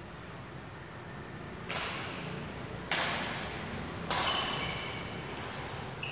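Badminton rally: four sharp racket strikes on the shuttlecock about a second and a quarter apart, each ringing on in the echoing hall, the last one fainter. Shoes squeak on the court floor after the third hit and again near the end.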